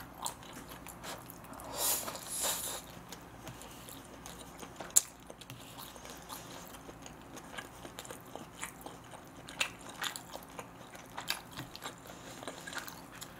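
A person chewing and biting food close to the microphone, with wet mouth clicks and smacks throughout. There is a louder burst of chewing about two seconds in and a single sharp click about five seconds in.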